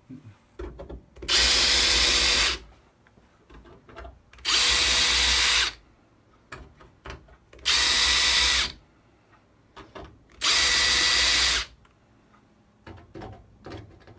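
Power drill running in four short bursts of about a second each, its twist bit countersinking screw holes in a TV's metal backlight panel, with a steady motor whine in each burst. Faint clicks and scrapes come between the bursts.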